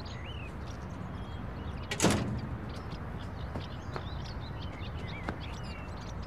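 A sheet-metal yard door banging shut once, about two seconds in, with a sharp metallic impact.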